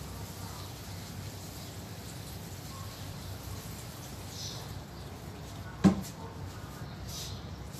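Steady low outdoor hum with a few faint bird chirps, and a single sharp knock about six seconds in.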